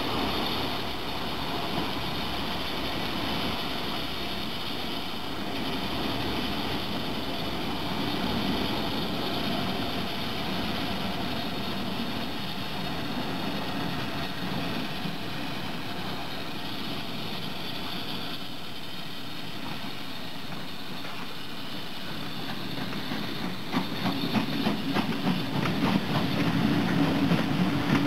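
BR Britannia-class 4-6-2 steam locomotive 70013 Oliver Cromwell working hard with a train, its exhaust chuffing as it approaches. It gets louder in the last few seconds, with rapid, distinct exhaust beats as it passes close by.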